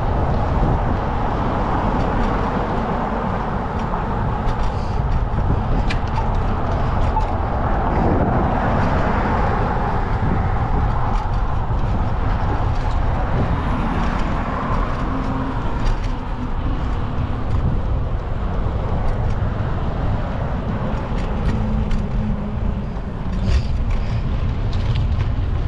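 Steady street traffic noise with wind rumbling on the microphone of a moving bicycle; a vehicle swells past about eight to ten seconds in.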